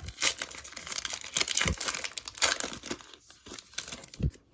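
Plastic wrapper of a 2022 Topps Archives baseball card hobby pack being torn open and crinkled, in a run of irregular crackles and rips.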